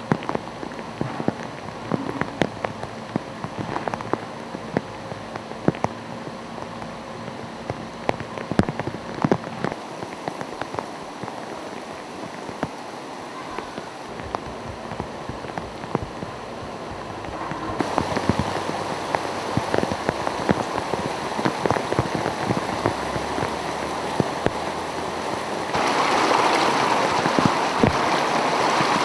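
Rain from Hurricane Irene falling steadily, with many individual drops striking nearby surfaces. The rushing noise grows louder about two-thirds of the way through and again near the end.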